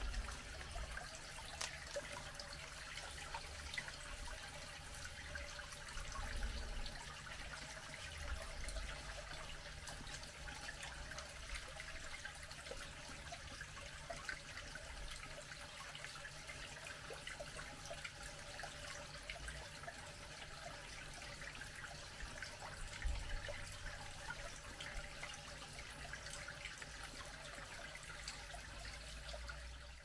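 Steady trickle of water falling from a concrete pipe into a shallow rocky pool, with a few soft low bumps.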